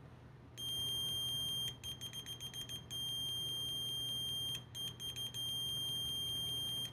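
HANDSKIT 830LN multimeter's piezo continuity buzzer sounding a high, steady beep. It starts about half a second in, stutters rapidly on and off twice, and cuts off suddenly near the end.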